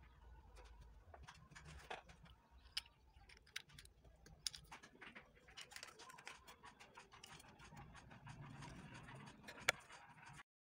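Faint, scattered small clicks and light scratching of small objects being handled on a worktable, with one sharper click near the end.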